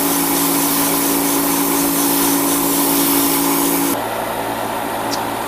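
Hobby spray booth's exhaust fan running with a steady hum and airy hiss. The hiss cuts off abruptly about four seconds in, leaving a quieter hum.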